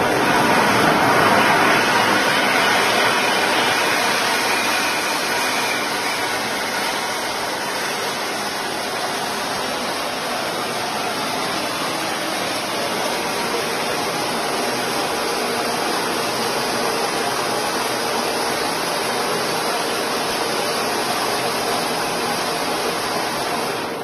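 A firework, lit by an electric ignition system, burning with a loud, steady hissing rush that eases slightly after the first few seconds and cuts off at the end.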